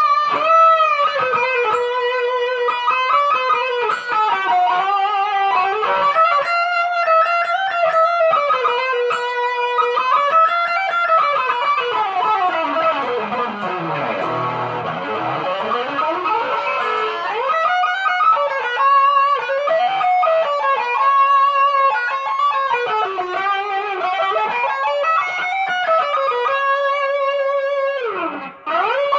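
Ibanez GIO electric guitar playing a single-note lead melody with bends and vibrato. About twelve seconds in, the pitch sweeps slowly down very low and climbs back up. It dips sharply again near the end.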